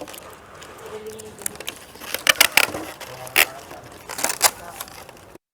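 Scattered clicks, crackles and scrapes of building materials being handled, with faint voices in the background.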